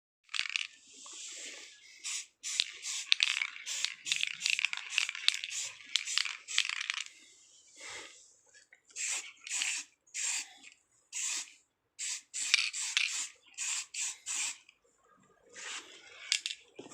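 Aerosol spray paint can spraying in short hissing bursts, with one longer pass at the start followed by many quick squirts.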